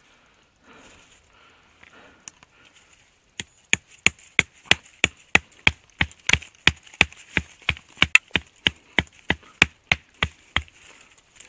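Pocket knife blade hacking at a sapling's woody stem: after one lone chop, a fast run of sharp chops, about four a second, that stops shortly before the end.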